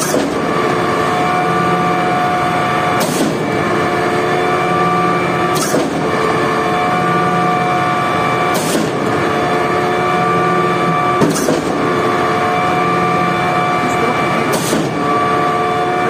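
Putzmeister truck-mounted concrete pump running, its engine and hydraulic pump holding a steady drone, with a sharp knock about every three seconds as the pump changes stroke.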